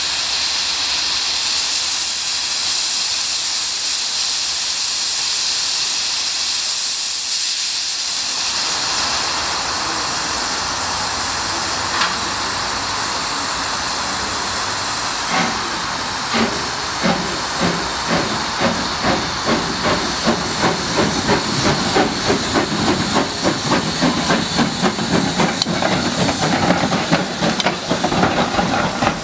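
Hudswell Clarke 0-6-0 saddle tank steam locomotive hissing steadily as steam blows off. About halfway through it gets under way, and rhythmic steam beats grow louder and quicken as it draws up and passes close by.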